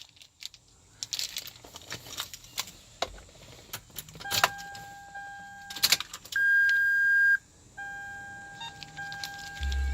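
Car keys and a remote jangling and clicking as they are handled, then a steady electronic beep tone that sounds on and off, louder and higher for about a second midway.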